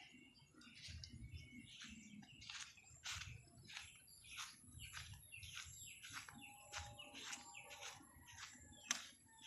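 Birds chirping faintly: a run of short, high chirps repeating a few times a second.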